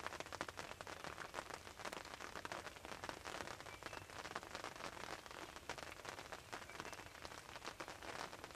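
Light rain pattering on the fabric roof of a hunting blind: a faint, steady run of many tiny ticks.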